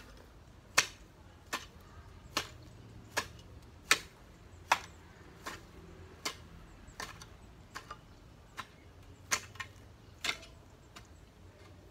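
A long-handled hoe chopping into grass and soil with sharp, regular strikes a little faster than one per second. The strikes stop about ten seconds in.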